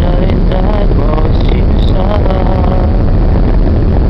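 Steady loud rumble of a ship under way: its engines and the churning wake at the stern. Faint voices show in the first couple of seconds.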